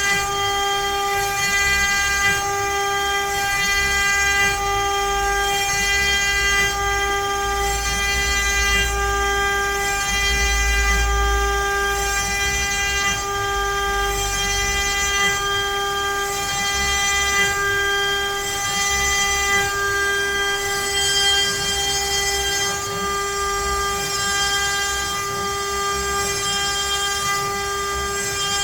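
CNC router spindle whining at a steady high pitch as the bit cuts letters into pine, with a rougher low rumble from the cutting and machine motion that swells partway through.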